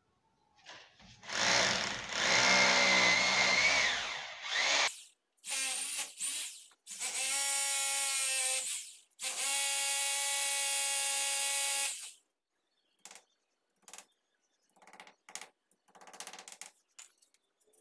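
Hammer drill boring holes into a masonry wall in four runs of a few seconds each, its motor whine steady through each run. After that come a few faint scattered clicks and taps.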